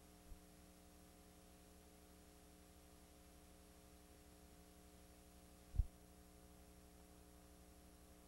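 Faint, steady electrical mains hum with several fixed low tones, from playback of blank videotape. A short low thump comes just after the start and a louder one about six seconds in.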